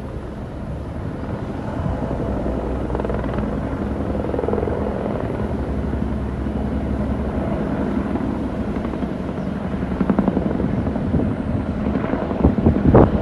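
A formation of military helicopters, AH-64 Apache attack helicopters among them, flying past overhead: a steady rotor chop that slowly grows louder. Gusts of wind hit the microphone near the end.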